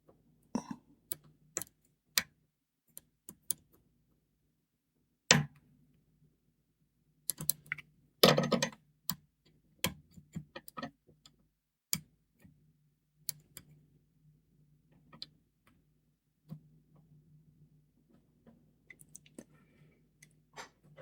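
Irregular sharp metallic clicks and ticks of a pick and tensioner working the four levers inside a Belfry No. 67 lever padlock, with a faint steady low hum underneath.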